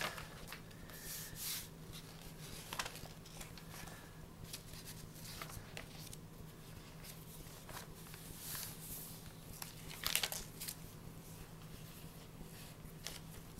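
Paper pages of a handmade junk journal being turned and handled, with soft, scattered rustling and brushing and a louder rustle about ten seconds in. A faint steady hum runs underneath.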